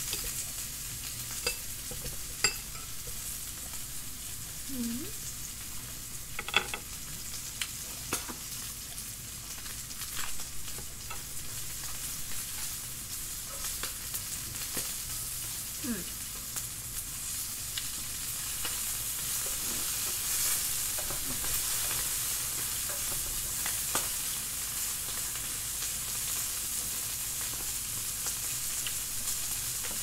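Pork belly slices sizzling steadily on a hot grill pan, with occasional light clicks as chopsticks turn the pieces.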